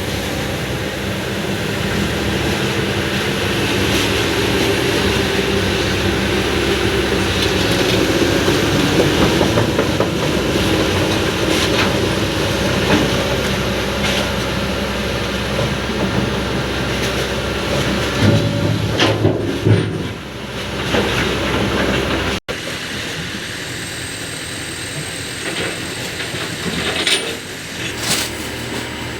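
Kobelco SK200 hydraulic excavator's diesel engine running under load, with hydraulic whine and occasional sharp metal clanks as it works the steel barge door.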